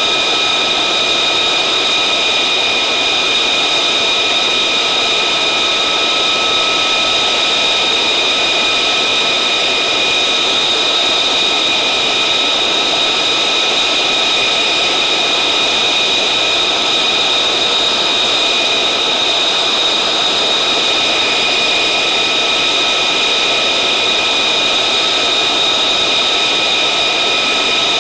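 F-35A Lightning II's single F135 turbofan idling on the ground before taxi: a steady high whine over a rushing hiss.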